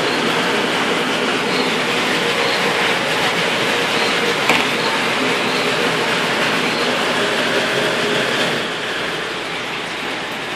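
Water rushing steadily out of a koi pond vortex settling chamber as it is purged through its bottom drain, with one sharp knock about halfway through; the rush eases off somewhat near the end.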